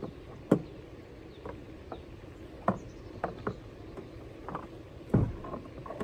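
Irregular knocks and clunks of gear being handled in a Native Titan 10.5 plastic fishing kayak, about a dozen over six seconds, the loudest about half a second in and just after five seconds.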